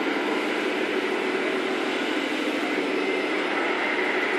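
Steady mechanical hum and hiss of radio-controlled model trucks running across an indoor layout, with a faint high whine.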